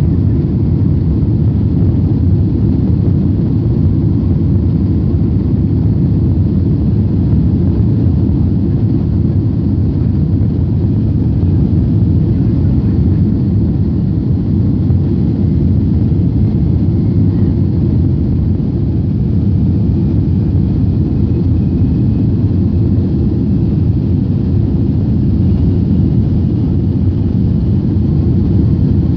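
Steady low rumble of a jet airliner's engines and wheels, heard inside the cabin as the plane rolls along the ground.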